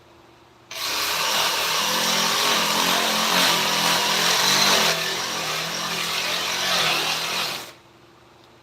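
A handheld power tool working on wood, giving a loud, harsh, whirring noise that starts abruptly about a second in and stops near the end.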